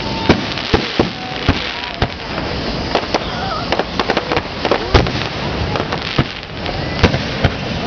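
Aerial firework shells bursting during a finale barrage: a rapid, irregular string of sharp bangs, a dozen or more, over a steady background noise.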